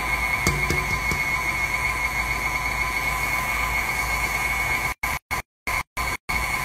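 KitchenAid Artisan stand mixer's motor running steadily with a high whine while its beater mixes cake batter in the steel bowl. A couple of light clicks come about half a second in. Over the last second and a half the sound cuts in and out repeatedly.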